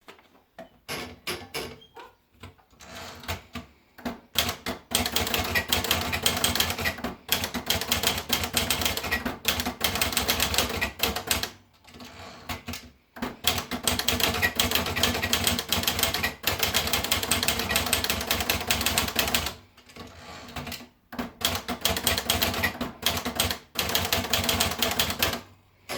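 Olivetti Lettera 25 portable manual typewriter being typed on: long runs of rapid keystrokes, a few slower strokes at first, broken by a few short pauses.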